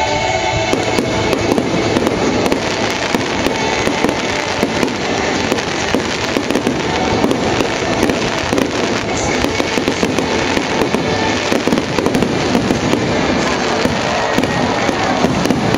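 Fireworks display: aerial shells bursting overhead in quick succession, with a dense, continuous crackling and popping.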